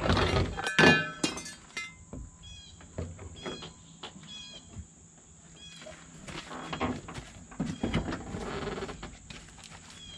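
Side mirror being unbolted and worked free of a Chevrolet Beretta's door: several sharp knocks and clunks in the first two seconds, then a run of short high chirps about twice a second, then rustling handling noise.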